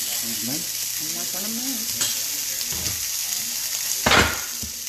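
Sesame-crusted tuna steaks searing in a cast-iron skillet, a steady sizzle, with one sharp knock about four seconds in.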